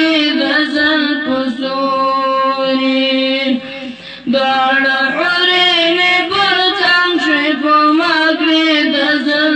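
Boys singing a chant-like song into a microphone with no instruments. About two seconds in they hold one long note, then take a short breath about four seconds in and carry on singing.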